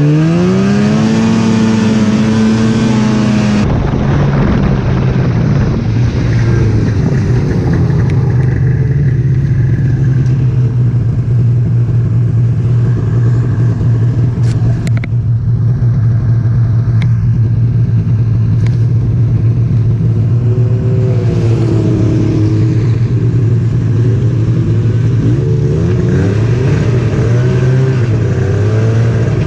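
Snowmobile engine running under way: it revs up over the first few seconds, then holds a steady note, with a brief rise and fall in pitch about two-thirds through. A few sharp ticks come in the middle.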